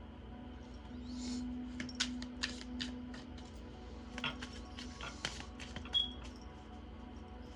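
Tarot cards being handled and shuffled: a run of quick, sharp snaps and riffles. Behind them is a soft, steady musical drone.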